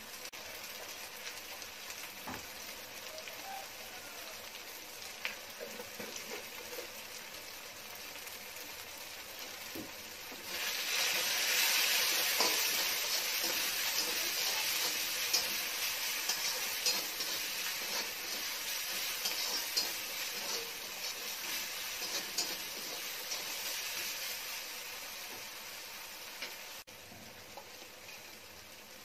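Onions, tomatoes and curry leaves frying in oil in a metal kadai, with a steady sizzle. About ten seconds in the sizzle grows louder as the mix is stirred, with small taps and scrapes on the pan, then it settles back down near the end.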